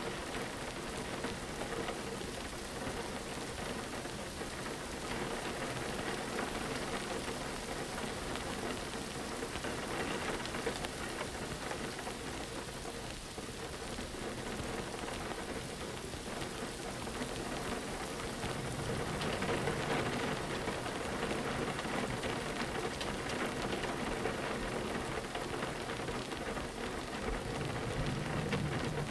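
Steady rain pattering on a window pane. About two-thirds of the way through, a low rumble joins in underneath the rain.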